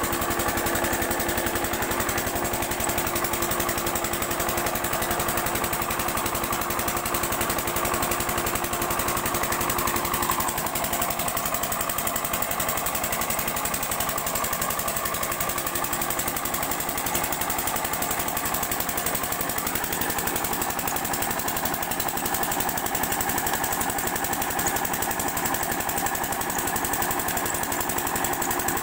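8 hp single-cylinder diesel water-pump engine running steadily under load, driving the pump, with water splashing from the outlet pipe.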